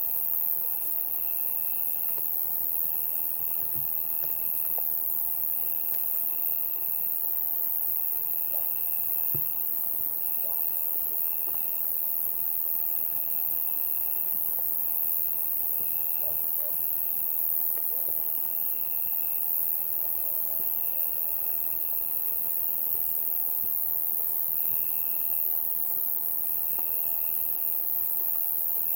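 Summer night insect chorus: a steady, high-pitched shrill from many insects, with a cricket trilling over it in repeated phrases about a second long, separated by short pauses.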